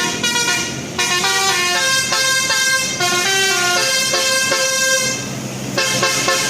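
Basuri telolet bus horn playing a quick tune of stepped musical notes, briefly dropping back twice.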